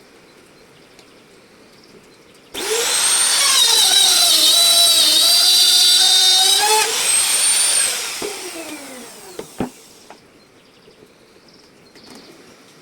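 Trim router switched on about two and a half seconds in, its high whine sagging in pitch under load as it cuts into the wood and rising again. It is then switched off and winds down with a falling whine, with a couple of sharp clicks during the spin-down.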